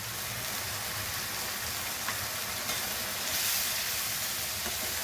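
Onion, ginger-garlic paste and ground spices frying in oil in a pan: a steady sizzle that swells a little about three and a half seconds in.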